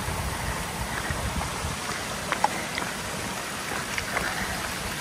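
A mountain stream running steadily, an even wash of water, with a few faint clicks in the middle of it.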